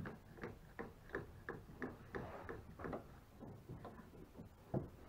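Irwin Quick-Grip one-handed bar clamp being ratcheted tight by repeated trigger squeezes: a run of light clicks at about three a second, with one louder knock near the end.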